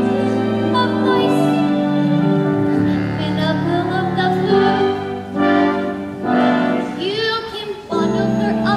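A young woman singing a solo show tune over instrumental accompaniment, with long held notes. The music eases off briefly about seven seconds in.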